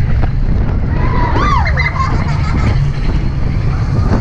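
Big Thunder Mountain Railroad mine-train roller coaster cars rumbling fast along the track. About a second and a half in, a rider's brief whoop rises and falls over the rumble.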